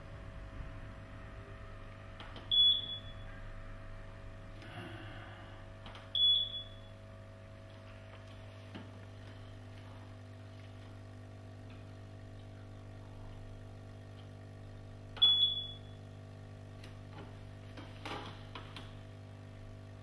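Electrocardiograph keypad beeping as its buttons are pressed: three short high beeps, the first two a few seconds apart and the third after a longer pause, over a steady low electrical hum from the equipment.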